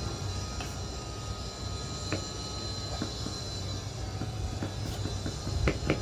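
A steady low rumble and hum, with scattered light clinks of steel spoons against steel pots as papad batter is scooped and spread; the clinks come more often near the end.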